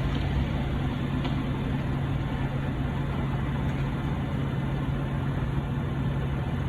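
Steady noise of riding the electric fat-tire bike, mostly wind on the microphone over a constant low hum.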